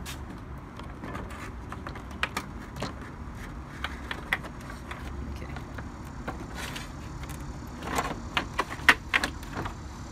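Plastic radiator fan shroud being slid down beside the radiator and pushed into place, giving scattered clicks and knocks of plastic against plastic. A quicker run of louder knocks comes near the end as it is pressed home.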